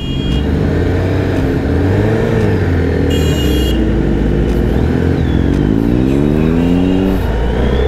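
Superbike engine running at low revs, then revving up for about two seconds near the end before easing off. A brief high-pitched beep sounds about three seconds in.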